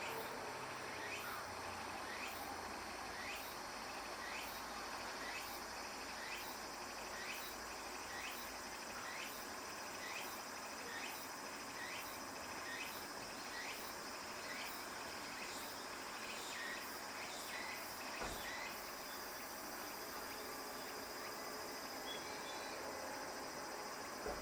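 Late-summer insects trilling steadily and high, with a short chirp repeating evenly about every two-thirds of a second that stops about eighteen seconds in.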